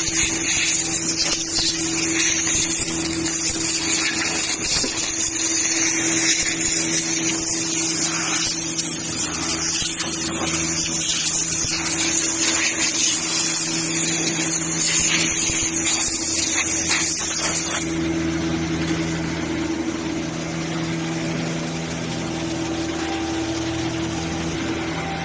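Woodmaster 5-axis CNC wood router running: a steady motor hum and whine, with a loud high hiss over it that stops abruptly about 18 seconds in, leaving the hum.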